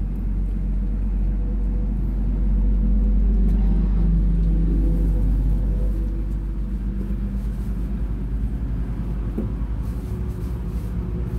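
A motor engine running with a low rumble, swelling over the first few seconds and then settling to a steadier hum.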